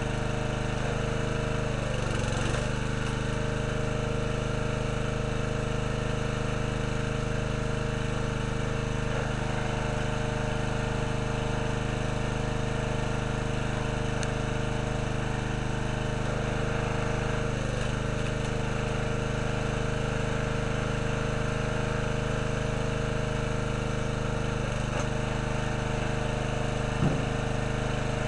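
Small gasoline engine of a hydraulic log splitter running steadily, its note dipping briefly a few times as the ram is loaded pushing logs through the wedge. A short sharp knock sounds near the end.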